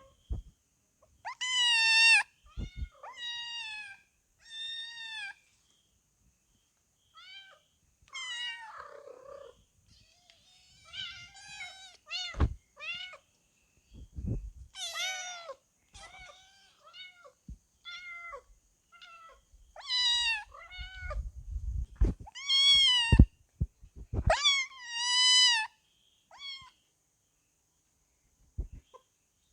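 Kittens meowing over and over: high-pitched calls of about half a second to a second each, some coming in quick runs of two or three, with short pauses between. A few low thumps fall between the calls.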